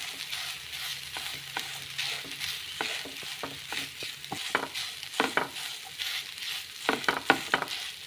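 Spatula stirring and scraping a moist mixture of beaten rice, grated coconut and country sugar around a hot pan, with a light sizzle underneath. The scrapes come irregularly and grow more frequent in the second half.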